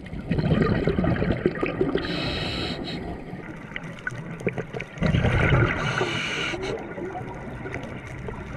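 A scuba diver breathing through a regulator underwater, heard through a camera's underwater housing: two breaths, each a loud gurgle of exhaled bubbles (about half a second in and again about five seconds in) with the hiss of the regulator's airflow during or after it.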